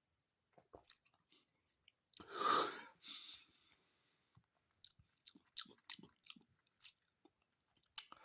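A person tasting a stout: one loud breathy sound about two seconds in, a softer one just after, then a string of small mouth clicks and lip smacks.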